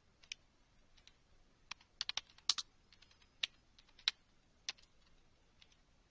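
Computer keyboard being typed on: a dozen or so separate key clicks at an irregular pace, with a quick run of keystrokes around two seconds in.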